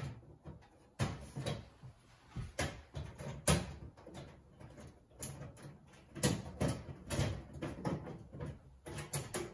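Fluorescent light fixture cover being pushed up onto its tabs on the metal fixture: irregular knocks, clicks and rattles, the loudest about three and a half seconds in and again a little after six seconds.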